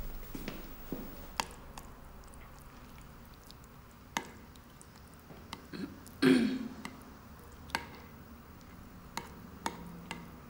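Spoons clinking and scraping on ceramic plates as people eat: a scattering of light, sharp clicks, with one louder, brief sound about six seconds in.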